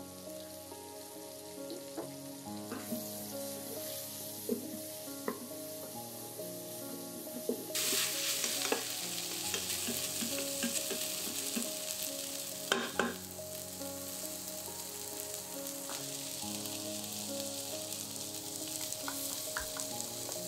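Sliced onions sizzling in hot olive oil in an Instant Pot's stainless steel inner pot on the sauté setting, stirred with a wooden spoon that scrapes and knocks against the pot now and then. The sizzle gets louder about eight seconds in.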